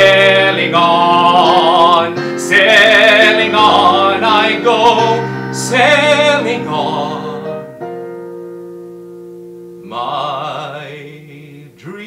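Male voice singing long held notes with wide vibrato over sustained instrumental chords. The voice drops out about seven seconds in, leaving the held accompaniment, and comes back briefly with one more held note near the end.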